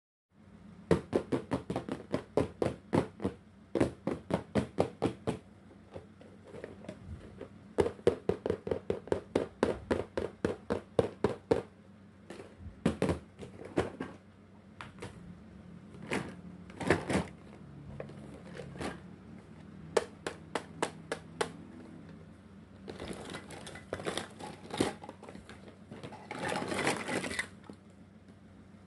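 Fingernails tapping on a hard plastic toy case in quick runs of about six taps a second, with single knocks of plastic on plastic in between. Near the end, plastic pieces rustle and rattle as they are handled.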